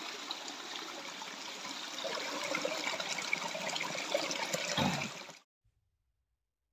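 Running water trickling over rocks, growing louder as water pours and splashes into a metal basin with a hand working in it; the sound cuts off abruptly about five seconds in.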